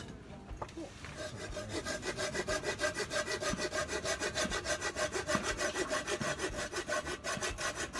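Hand saw cutting through firewood with quick, even back-and-forth strokes, about five a second, starting about a second in and stopping at the end.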